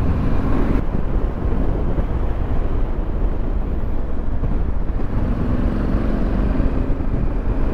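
Yamaha Ténéré 700 motorcycle being ridden, its parallel-twin engine running steadily under heavy wind rush on the microphone.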